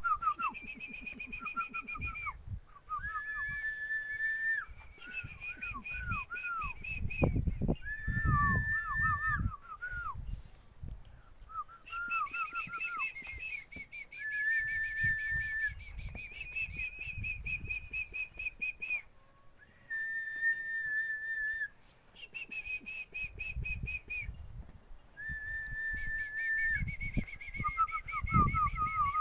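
Tuneful whistling in repeating phrases: long held notes, warbling trills and groups of short falling chirps. A few low thumps come in under it.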